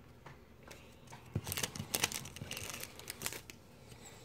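Foil Pokémon booster pack wrapper crinkling and trading cards being handled, a scatter of short rustles and clicks, thickest in the middle.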